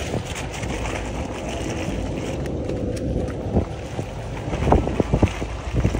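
Wind buffeting the microphone over a steady low rumble, with a few sharp hoofbeats of horses trotting on a dirt track in the last couple of seconds.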